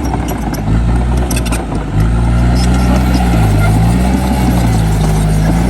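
Heavy diesel engine of earthmoving machinery running under load, its speed dipping and picking up again several times.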